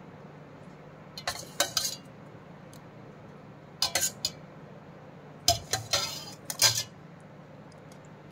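Metal kitchen utensils, a steel spoon and a wire whisk, clinking and tapping against a mixing bowl while curd is added to flour for batter. The taps come in three short clusters.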